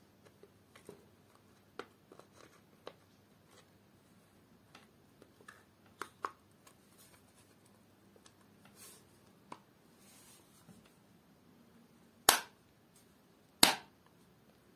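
Small clicks and taps of hands handling and fitting together a corded drill's plastic housing during reassembly. Two loud, sharp clicks come a little over a second apart near the end.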